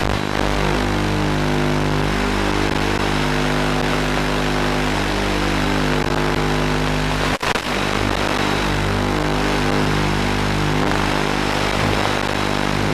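Background music of sustained, droning chords, with a brief break about seven seconds in.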